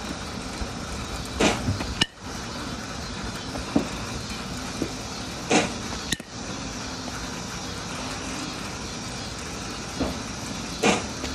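Batting-cage sounds: a steady mechanical hum under three sharp knocks about five seconds apart, baseballs being pitched and swung at, plus two short clicks.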